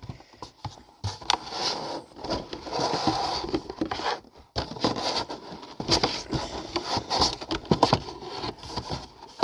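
Cardboard packaging being handled and slid about, scraping and rustling with a run of light knocks and clicks.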